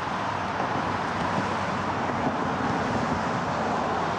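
Steady outdoor background noise: an even hiss with no distinct event.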